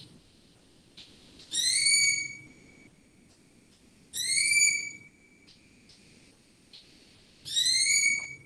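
A bird's whistled call, repeated three times about three seconds apart, each a short clear whistle that rises slightly and then holds.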